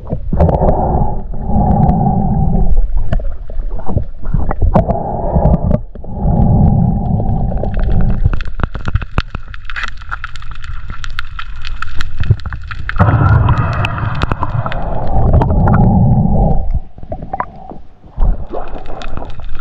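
Underwater sound picked up by a camera moving with a freediver: muffled rushing and gurgling water that swells and fades in several long surges, with scattered sharp clicks throughout.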